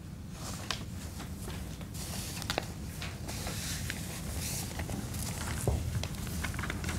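Scattered faint clicks and rustles of performers shifting on a stage and handling loose script pages, over a low steady room hum.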